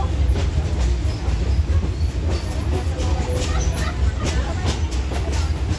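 Passenger train car rolling along the track: a steady low rumble with irregular sharp clicks and knocks from the wheels and running gear.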